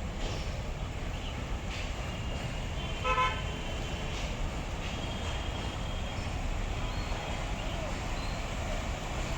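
Street traffic with a steady low rumble. A vehicle horn sounds once, briefly, about three seconds in, and fainter distant horns toot here and there.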